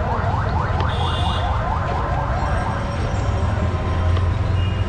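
An electronic warbling alarm or siren, a fast run of rising sweeps about four a second, stopping about two and a half seconds in, over a steady low rumble.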